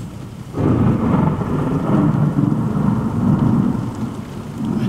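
A thunderclap breaks about half a second in and rumbles on, heard from inside a Land Rover Defender, with rain on the vehicle.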